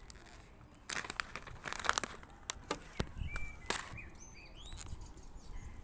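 A packet of worms for bird feeding being opened and handled, crinkling and crackling in quick irregular bursts. Short high bird chirps come in during the second half.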